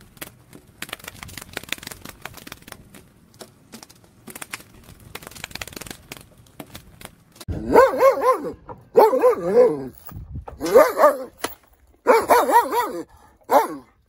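Samoyed dog vocalising in five howl-like bursts with a wavering pitch, each half a second to a second long, beginning about halfway in. Before that there is only faint rustling.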